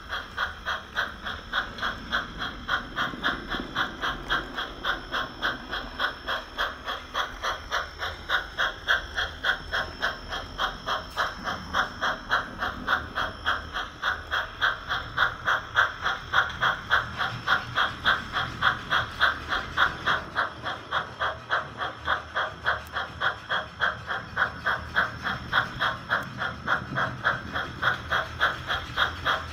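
HOn3 scale model steam locomotive's sound chuffing steadily as it runs, an even beat of about three to four chuffs a second.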